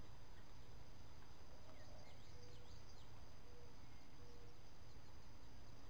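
Steady chorus of insects, a constant high-pitched drone, with a few faint bird chirps and some short low calls about a second apart in the middle.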